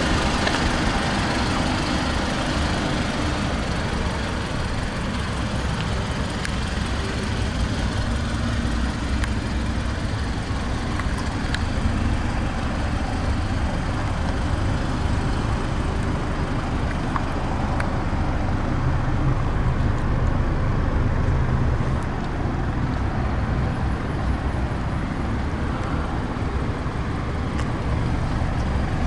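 2015 Mazda 6's 2.5-litre inline-four engine idling steadily, a low even hum.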